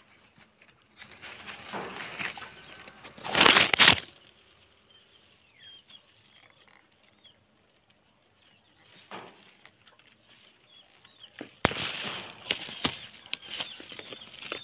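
Leaves and branches rustling in bursts as hands and the phone push through the foliage close to the microphone, loudest about three to four seconds in and again near the end. Faint short bird chirps sound in between.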